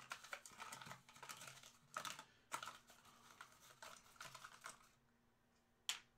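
Faint typing on a computer keyboard: irregular clicks that stop about three quarters of the way through, with one more click near the end.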